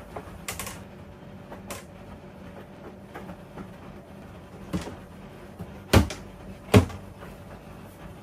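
Plastic tilt-out laundry bin flaps clacking as clothes are pulled out, with two heavier thumps about six and seven seconds in as the flaps swing shut. A faint steady hum runs underneath.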